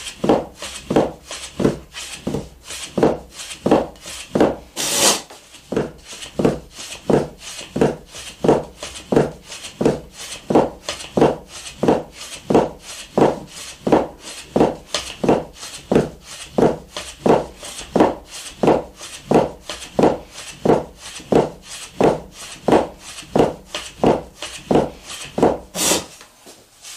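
A soba-kiri knife slicing folded buckwheat noodle dough against a wooden guide board, in a steady rhythm of about three strokes every two seconds. Each stroke is a soft chop onto the wooden board as the blade slides down along the guide. Twice, about five seconds in and near the end, there is a brief, sharper scrape.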